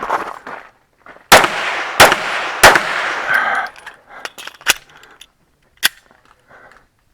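Handgun shots: three loud shots about two-thirds of a second apart, starting about a second in, each with a ringing echo, then two fainter sharp cracks later on.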